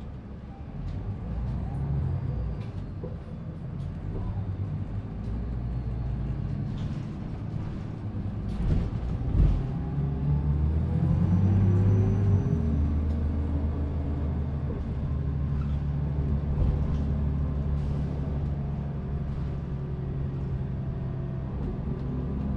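The Cummins ISL diesel engine and ZF Ecomat II automatic transmission of a 2005 New Flyer D40LF bus running under way. The pitch climbs as the bus accelerates partway through, then holds steady, with a sharp knock shortly before the climb.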